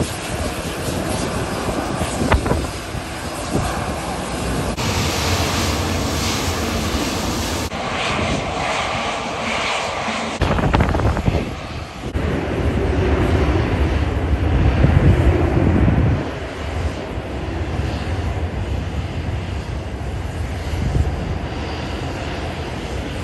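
Airliner engines running across an airfield, in a series of short cuts. A Boeing 737 jet on the runway is loudest in the middle and fades off about 16 s in. A Dash 8 turboprop rolling on the runway is heard near the end.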